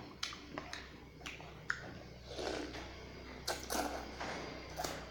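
Close-up eating sounds from a bowl of rice noodle soup: scattered sharp clicks and scrapes, with mouth sounds of eating twice in the middle. A steady low hum runs underneath.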